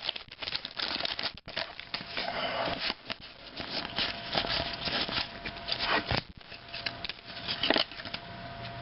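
Trading cards being handled and flipped through one by one, an uneven scratchy rustling of card stock and pack wrapper with scattered sharp clicks.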